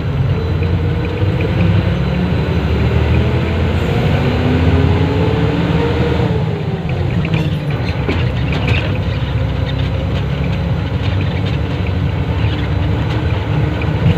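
An engine running steadily with a heavy low rumble, its pitch drifting slowly up and down.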